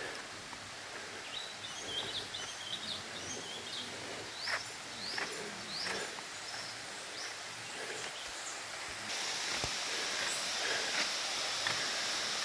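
Outdoor ambience with small birds chirping in short, quick rising calls through the first half, and a few scattered soft clicks. About nine seconds in, a steady high hiss comes in and stays.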